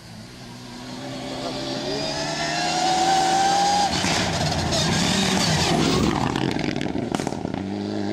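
Rally car on a gravel stage, its engine note climbing in pitch as it approaches and grows louder. About four seconds in the note breaks off and the car passes close, loud and rough, with many sharp clicks of loose gravel under the tyres.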